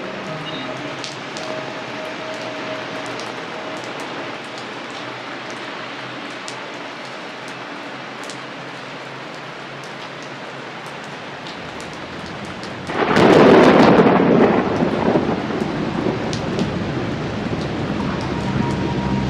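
Steady rain with scattered individual drops ticking. About 13 seconds in, a sudden loud clap of thunder breaks and rolls on as a low rumble to the end.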